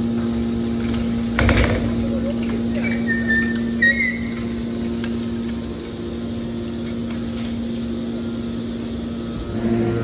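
Hydraulic scrap-metal baler running, its hydraulic power unit giving a steady hum while the ram pushes out a bale of compressed metal turnings. There is a single metallic clank about a second and a half in and a brief high squeal around four seconds.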